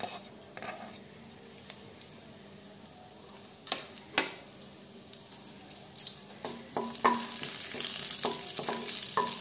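Cumin seeds sizzling in hot oil in a nonstick kadhai as a tempering (tadka): faint at first, then a denser crackle with scattered sharp pops that grows louder in the second half, with a wooden spatula stirring the seeds near the end.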